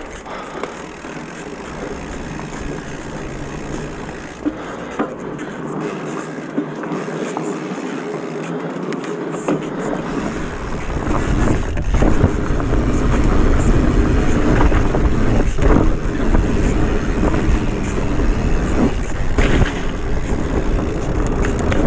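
Off-road vehicle engine running on a muddy trail. It runs fairly low at first, then grows louder and heavier from about ten seconds in. A few sharp knocks come through along the way.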